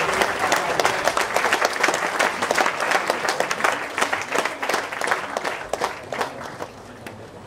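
A roomful of people applauding together in a standing ovation: a dense, loud patter of clapping that thins out and dies away near the end.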